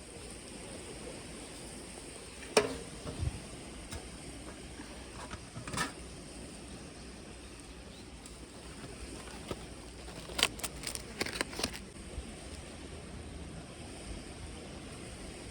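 Steady outdoor hiss with a sharp knock a few seconds in, another near the middle, and a quick run of clicks and knocks about two-thirds of the way through.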